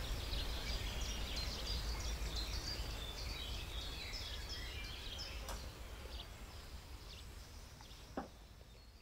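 Outdoor ambience of small birds chirping over a steady low hum, fading out steadily, with one short knock near the end.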